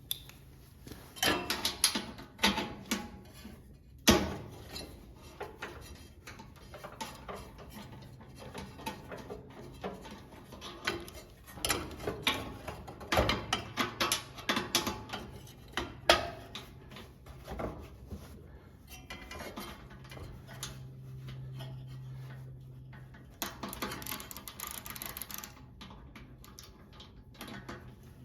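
Hand tools clicking, ratcheting and knocking against the metal parts of a kerosene torpedo heater while its nozzle assembly is unscrewed and worked loose: an uneven string of sharp taps and clinks, with two louder knocks, about four seconds in and again about sixteen seconds in.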